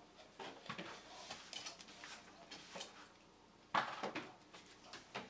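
Small irregular clicks and rattles from handling alligator-clip test leads and an AA battery holder, with one sharper click a little under four seconds in.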